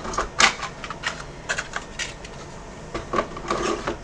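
Irregular clicks, rattles and rustles of small parts and packaging being handled on a workbench, as a replacement port is fetched.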